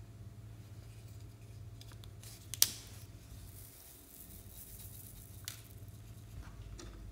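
A sharp plastic click as the pineapple-shaped container is opened, then small foam beads and powder pattering into a glass dish as they are poured out, with a lighter tap near the end.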